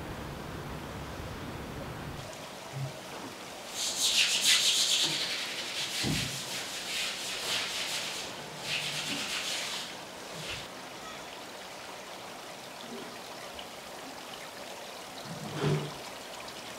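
Running and splashing water in live-seafood tanks, a rough hiss with louder rasping bursts about four seconds in and again around eight to ten seconds, after a steady low background noise at the start.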